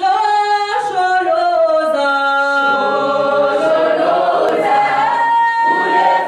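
A choir singing with voices only, in long held chords that step from one pitch to the next.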